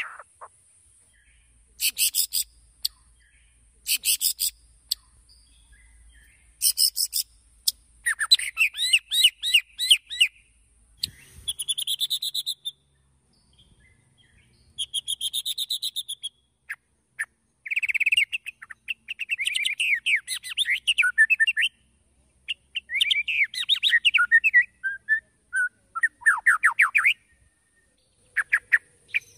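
White-rumped shama singing in bursts of a few seconds, separated by short pauses: rapid very high trills, then sweeping whistled and chattering phrases.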